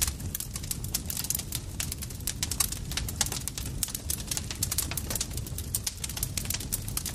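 Campfire crackling: dense, irregular snaps and pops of burning wood over a steady low rumble of the fire.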